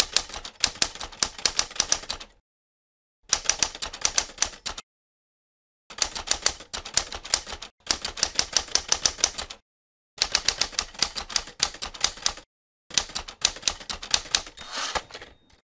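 Typewriter sound effect: five runs of rapid key strikes, each lasting one and a half to three and a half seconds, with short silent gaps between them.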